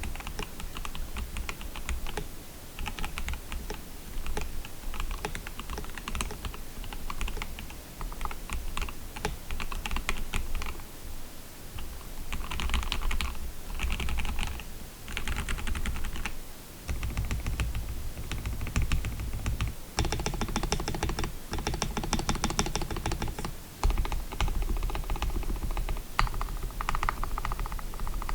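Typing on a KBD67 Lite R2 mechanical keyboard with lubed, filmed Gateron Black Ink V2 linear switches and PBT Cherry-profile keycaps on a polycarbonate plate: a continuous run of key clacks with deeper spacebar thocks. The typing comes in runs, fastest and densest in the second half, over a steady microphone hiss.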